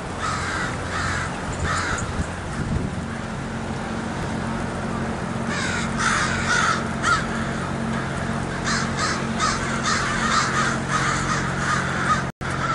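American crows cawing: three caws in the first two seconds, a quick run of calls around six to seven seconds in, and a denser run from about nine to eleven seconds in. A steady low hum sits underneath from about three seconds in.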